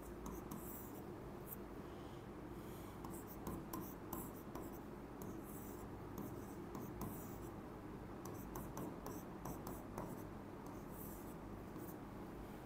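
Writing: a run of short scratchy strokes, irregularly spaced, over a steady low hum.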